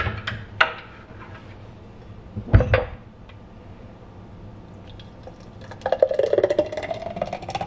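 A glass clinks and knocks down onto the kitchen counter, then a thick blueberry smoothie is poured from a blender cup into the glass, the pour's pitch rising as the glass fills.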